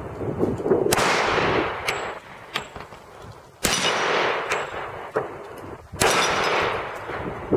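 Three single shots from a Taurus 24/7 G2 .45 pistol, fired slowly about two and a half seconds apart, each with a long echoing tail. A few fainter sharp clicks come between the shots.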